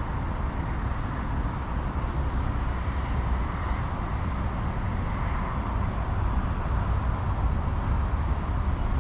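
Steady outdoor background noise: a low rumble with a soft hiss above it and no distinct events.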